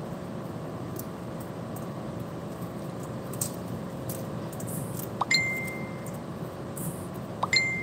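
Two identical short electronic beeps about two seconds apart, each a quick chirp followed by a steady high tone that stops cleanly, over a steady room hum. Faint sounds of fingers separating pomegranate seeds into a stainless steel bowl.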